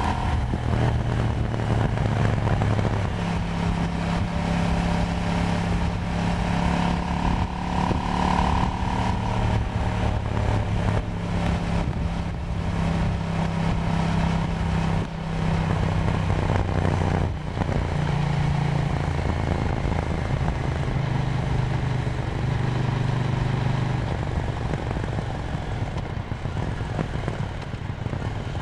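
KTM Duke 790's parallel-twin engine running under way, its pitch holding and then stepping up and down several times as revs change, over a steady rush of wind and road noise; it gets somewhat quieter near the end.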